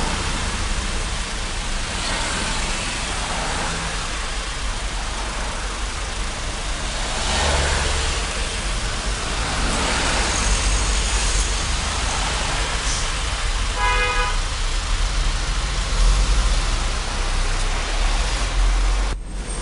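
Road traffic heard from inside a moving vehicle: a steady low engine and road rumble with a hiss of tyres and wind, and a single short horn toot about 14 seconds in.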